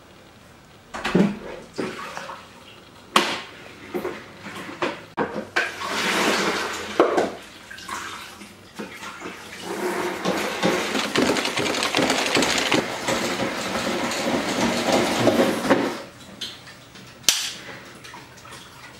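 Spin mop worked in its plastic bucket: several knocks and clunks as the bucket is set down and the mop pushed in, then about ten seconds of water sloshing and swishing as the mop head is rinsed and spun out, ending in a sharp click.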